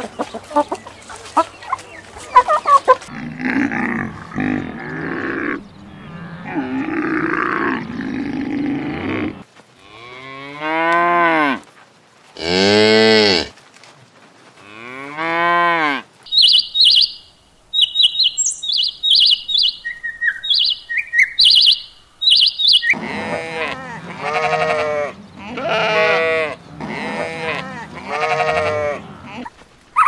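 Chickens clucking, then cows mooing three times in long calls that rise and fall in pitch. After that come several seconds of high, short bird chirps, then a run of five shorter animal calls in a row.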